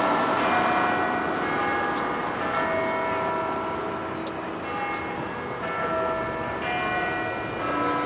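Peace Tower bells chiming, one bell note after another at different pitches, each ringing on and overlapping the next, over a steady hum of background noise.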